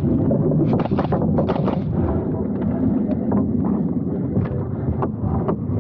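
Pneumatic framing nailer firing nails into lumber on plywood sheathing: a quick run of sharp shots in the first two seconds, then more widely spaced shots, over a steady low rumble.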